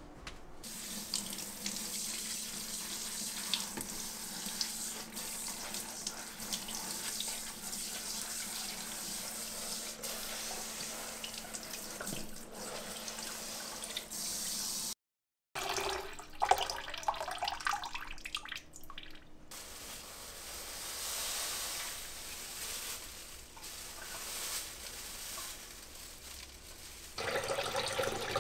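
Kitchen tap running into a sink, the stream splashing over and through a woven rice-washing basket being soaked before use. After a short break, water pours into a bowl with a rising pitch as it fills, and splashing grows louder near the end.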